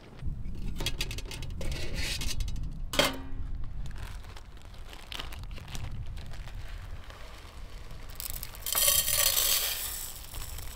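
Metal camp pots handled on a stainless table, with one ringing clink about three seconds in, then plastic-bag rustling and uncooked rice pouring into a metal pot, a dense rattling hiss lasting about a second near the end.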